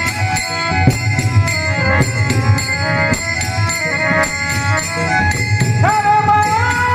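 Marathi devotional bhajan music: steady sustained instrumental tones over a regular drum beat and jingling hand-cymbal rhythm. A man's singing voice comes in with a rising glide near the end.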